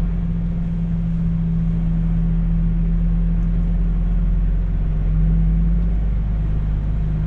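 Cab interior of a MAN semi-truck on the move: its diesel engine runs as a steady low drone under road noise, swelling slightly about five seconds in.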